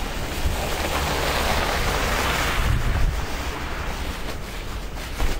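Blizzard wind buffeting the microphone with a steady low rumble, and a whooshing hiss that swells about a second in and dies away after about three seconds.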